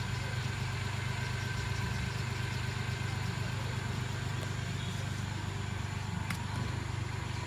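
Small engine of a portable drum concrete mixer running steadily at an even speed.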